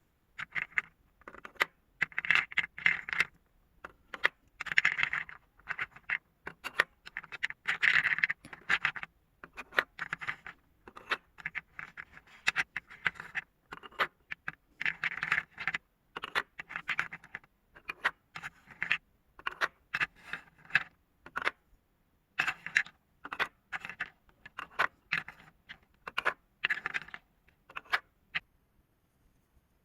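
Marbles rolling and clattering down a marble run: an irregular stream of sharp clicks and short rattling runs that never settles.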